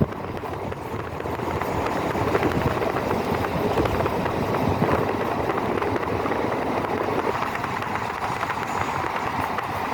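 A passenger train in motion: a steady rumble and rattle of wheels on the rails, thick with small clicks. It grows louder over the first two seconds.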